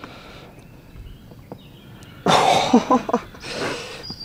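A man's strained grunts and heavy breathy exhales from the effort of pulling against a hooked large wels catfish on a heavily bent rod. Quiet at first, then from about two seconds in a loud groan and a second hard exhale.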